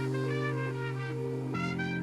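Background music: sustained brass-like chords with a melody over them, the chord changing about three-quarters of the way through.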